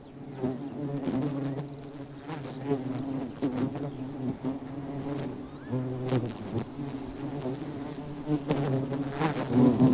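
Buzzing of several male plasterer bees (Colletes) scrambling over a single female in a mating ball. It is the characteristic buzzing that goes with their mating, a hum that keeps shifting in pitch and strength, with a few short scuffling crackles, loudest near the end.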